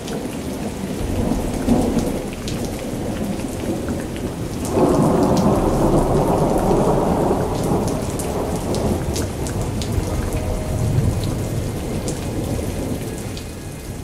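Steady rain with rolling thunder; a long, loud rumble of thunder begins about five seconds in.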